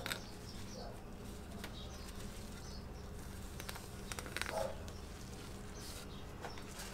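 A steady low buzzing hum with faint soft rustles and light knocks as a shop rag wipes cooking-spray mold release off the mold's mating surface.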